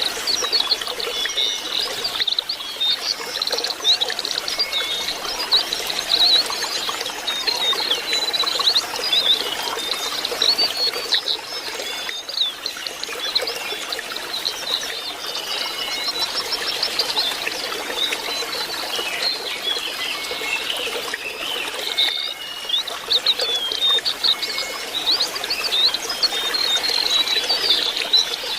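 Lesser shortwing (jongkangan) singing: a continuous run of quick, high chirps and twittering notes.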